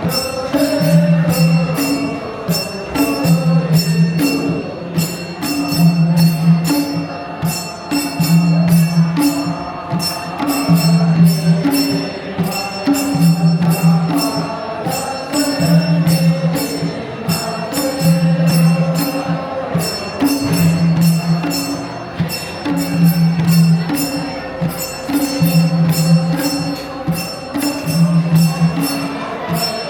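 Traditional Gurung folk dance music: voices singing over a low drum beat that repeats about every second and a quarter, with fast, bright jingling percussion on top.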